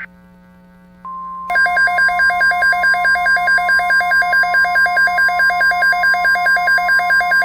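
A weather-radio alert tone: a steady single-pitch warning tone starts about a second in, and half a second later a loud electronic alarm joins it, switching between two pitches about three times a second. It signals an incoming weather alert, here a tornado watch.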